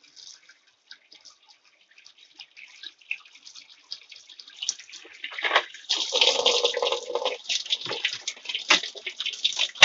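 Water running into the tub of a Panasonic semi-automatic washing machine from its water inlet. It starts faint and builds up into loud splashing and spattering over the first six seconds.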